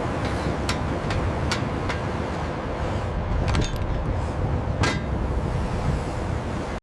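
Sawmill machinery running with a steady low rumble, broken by scattered sharp knocks and clanks, a few of them in quick succession about three and a half seconds in.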